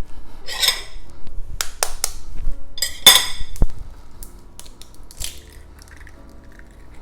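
An egg knocked against the rim of a bowl and cracked open: a few sharp taps and clinks on the bowl in the first four seconds, then quieter handling. Soft background music runs underneath.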